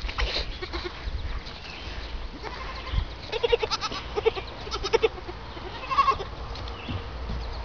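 Nigerian dwarf goat kids bleating: a string of short bleats from about three seconds in, then a higher-pitched bleat around six seconds.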